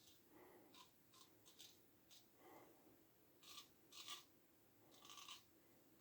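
Faint, short scraping strokes of a 1907 Ever Ready single-edge safety razor cutting lathered stubble around the mouth, the loudest a few seconds in.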